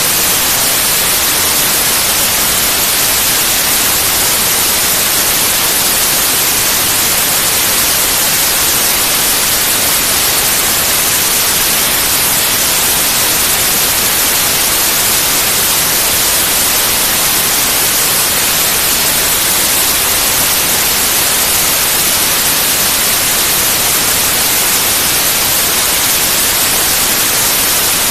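Steady, unbroken white noise: an even hiss across the whole range, brightest in the highs, at a constant loud level.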